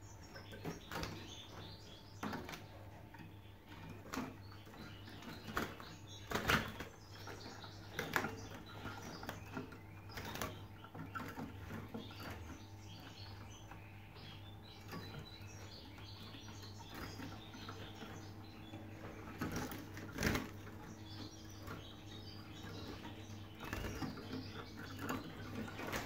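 Caged European goldfinches fluttering and calling now and then over a steady low hum, with scattered short knocks.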